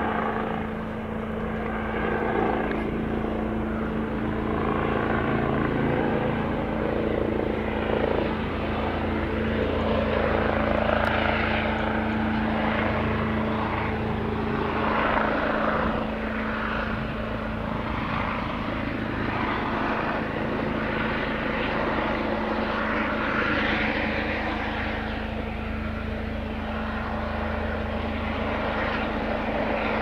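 Airbus Helicopters EC135 twin-turbine helicopter flying low on its arrival approach: a continuous turbine and rotor sound that swells and eases slightly.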